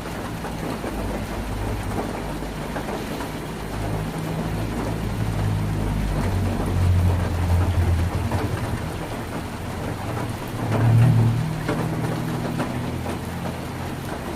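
Heavy rain drumming on a tin roof, a steady hiss of drops with scattered sharper taps. A low rumble swells twice, about seven and eleven seconds in.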